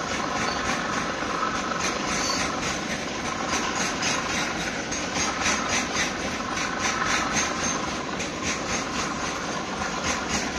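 Freight train tank wagons rolling past at speed: a steady rumble of wheels on rails with a run of quick clacks that grows denser from about three seconds in.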